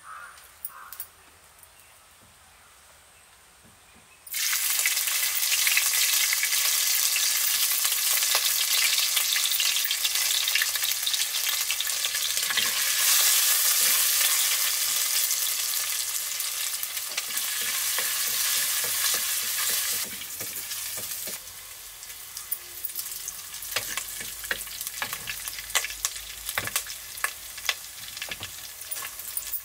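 Oil in a clay pot sizzling, starting suddenly about four seconds in, with a wooden spatula stirring in the pot. After about twenty seconds the sizzle drops to a quieter fry with many sharp pops and crackles.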